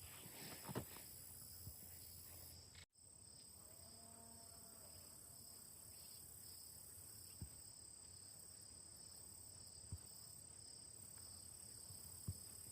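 Faint, steady high-pitched chorus of insects, with a few soft ticks.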